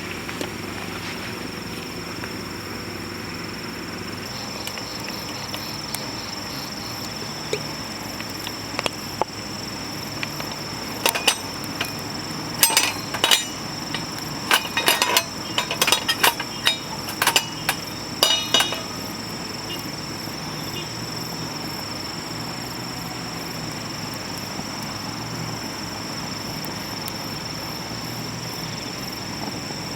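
Metal cooking utensils clinking and tapping against a campfire frying pan: a run of sharp clinks from about eleven seconds in to about nineteen seconds in, over a steady background hiss.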